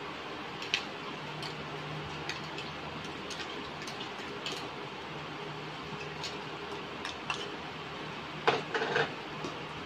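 Chicken and sauce simmering in a stainless steel pot on an induction cooker: a steady hiss with small scattered ticks and pops, over a low hum. A few sharper clicks come near the end.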